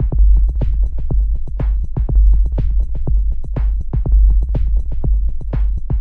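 Electronic dance music with a drum-machine beat over a heavy, continuous bass, with a sharp snare-like hit about once a second.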